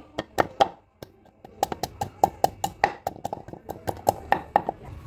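Wooden pestle pounding garlic cloves in a wooden mortar. Three knocks, a short pause about a second in, then a quick, even run of knocks, about five a second.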